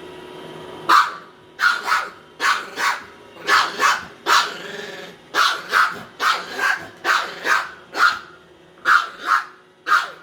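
A dog barking repeatedly at a Roomba robot vacuum to guard a sock, about two barks a second, often two quick barks in a row.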